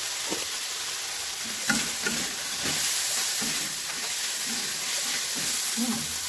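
Stir-frying in a wok: beef-skin crackers, chillies and onion sizzling steadily in a sauce while a metal spatula scrapes and tosses them against the pan, with a couple of sharp clinks about two seconds in.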